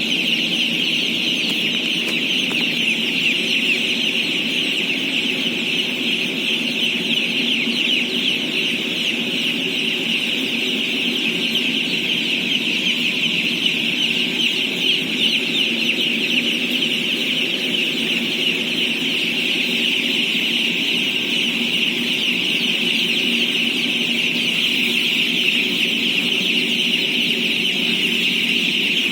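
A huge mass of day-old chicks chirping all at once: countless overlapping high peeps merging into one dense, steady chorus, with a lower murmur beneath.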